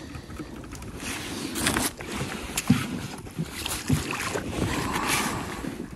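Water splashing and lapping at the side of a plastic fishing kayak as a landing net is dipped and moved in the water, with wind rumbling on the microphone. Two dull knocks, a little over a second apart, come near the middle.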